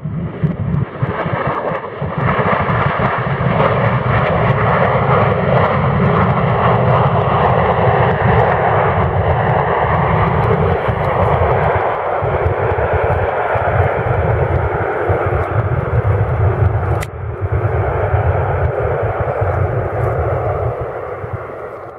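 Delta McDonnell Douglas twin-jet with rear-mounted engines on its landing roll, its engines in reverse thrust with the reverser buckets open: a loud, steady jet noise that comes in suddenly, dips briefly once with a sharp click, and eases off near the end.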